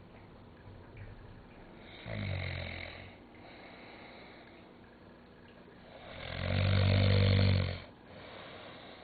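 A man snoring in his sleep: two low-pitched snores, a shorter one about two seconds in and a longer, louder one about six seconds in.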